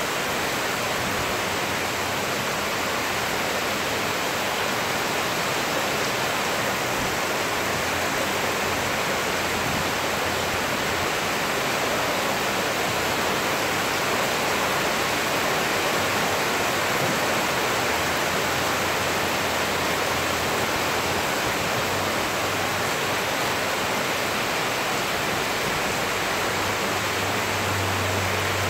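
Rain falling steadily on a street and rooftops: a dense, even hiss that does not change.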